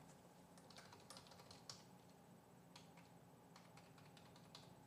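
Faint typing on a computer keyboard: a scatter of light, quick key clicks with a short pause about halfway.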